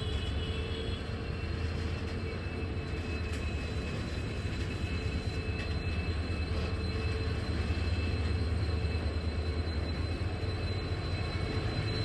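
Indian Railways WDG4 diesel-electric locomotive's two-stroke V16 diesel engine running, a steady low rumble with thin high whining tones above it.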